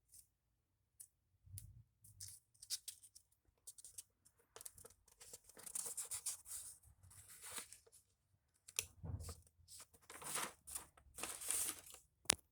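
Paper rustling and crinkling in irregular bursts as drawings on paper are handled and moved, with a couple of soft low thumps and a sharp click near the end.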